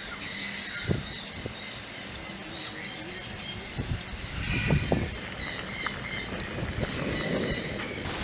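A machete slicing chili peppers against a coconut-husk block, making a few soft knocks about one, four and five seconds in. A bird chirps over and over throughout.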